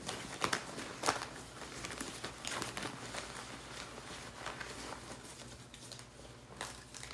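Reading cards being handled: irregular soft flicks, taps and paper rustles as cards are shuffled and drawn.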